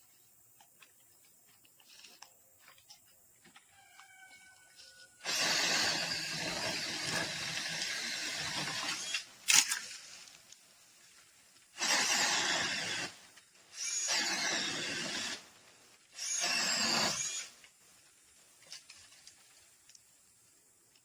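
Cordless brushless battery chainsaw running in bursts: one long run of about four seconds, then three short runs of about a second each. A sharp click comes just after the first run.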